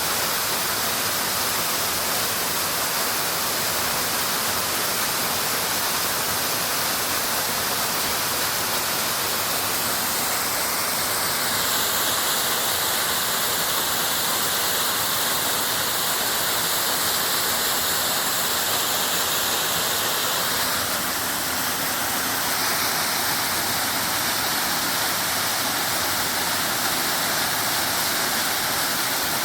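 Urlătoarea waterfall: a steady rush of falling, splashing water. Its tone shifts slightly about a third and again two-thirds of the way through.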